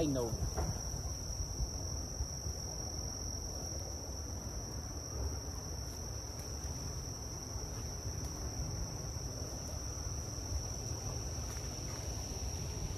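A steady, high-pitched trill of insects, one unbroken tone, over a low rumble.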